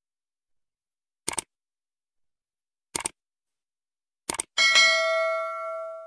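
Sound effects for a like-and-subscribe button animation: three mouse clicks, each a quick double tick, about a second and a half apart. Right after the third comes a notification-bell ding, the loudest sound, ringing and fading over about a second and a half.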